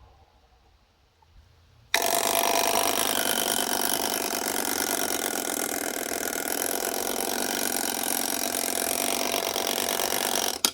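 Tiny mechanical travel alarm clock going off: about two seconds in, the alarm starts suddenly with a loud, steady, rapid rattling buzz, and it cuts off suddenly near the end.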